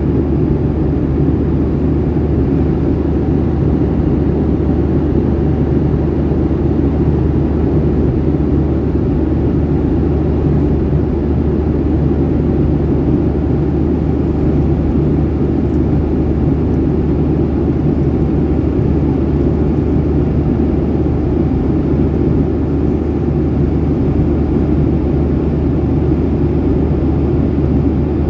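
Jet airliner engines running, heard inside the cabin as a loud, steady low drone with no change in pitch.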